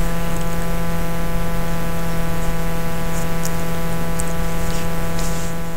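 Steady electrical hum and hiss in the recording, a loud buzz with many evenly spaced overtones over a bed of static-like noise, fading out near the end.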